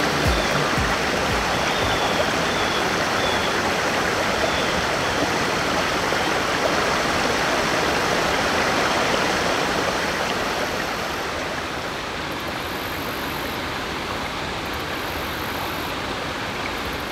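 Shallow river flowing over rocks: a steady rushing of water that eases a little from about ten seconds in.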